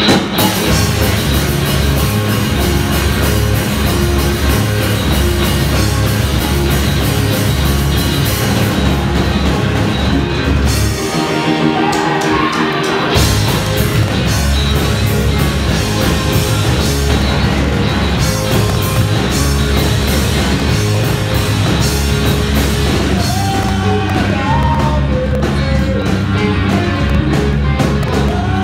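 Live rock band playing loud: electric guitars, bass and drums with a singer. The band breaks off briefly about eleven seconds in, then comes back in full.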